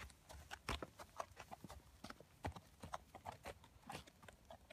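Horse walking on snow-covered ground, its hooves making a faint, irregular run of short clicks and knocks.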